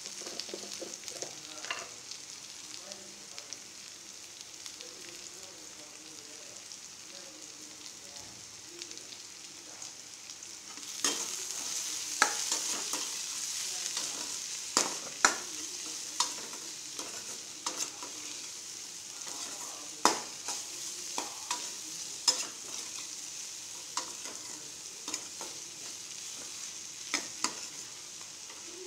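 Chopped bitter gourd and onion frying in oil in a stainless-steel kadai, sizzling steadily, while a metal ladle stirs them, scraping and clinking against the pan. The sizzle gets louder about eleven seconds in, and the ladle strikes come sharply and irregularly from then on.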